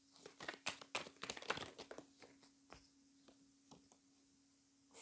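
A deck of animal oracle cards being shuffled by hand. There is a quick run of papery card clicks and flutters for about two seconds, then a few scattered taps, over a faint steady hum.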